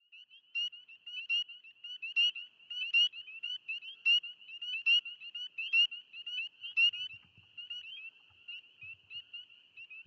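Chorus of spring peepers: many short, high, piping peeps at about the same pitch, overlapping one another, growing fainter over the last couple of seconds.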